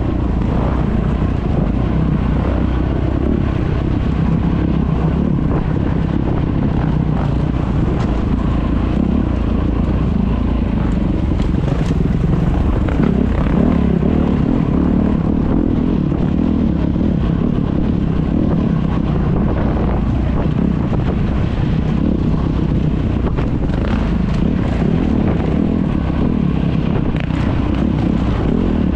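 Dirt bike engine running steadily under way, heard from the rider's own bike, with wind buffeting the microphone.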